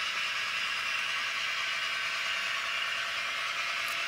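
Sound decoder of a Piko class 118 model diesel locomotive playing its diesel engine sound through the model's small speaker as the locomotive runs. The sound is steady and thin, with almost no bass.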